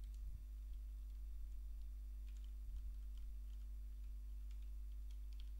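Faint computer keyboard keystrokes: scattered taps, more of them in the second half, over a steady low electrical hum.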